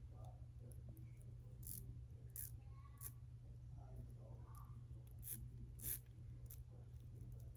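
Faint handling of a fabric-and-plastic zipper bracelet fidget: a few scattered light clicks and soft rustling, over a steady low hum.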